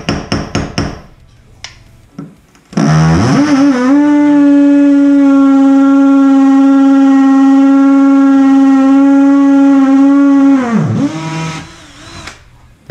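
A few quick hammer taps on a punch against ceramic wall tile, then a cordless drill spins up and runs at a steady pitch for about eight seconds as its bit bores into the tile. Near the end the drill winds down, with a brief short burst after.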